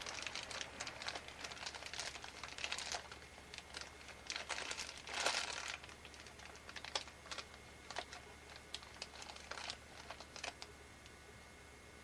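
Irregular close-up rustling and crackling, dense for the first half and thinning to scattered crackles after about six seconds.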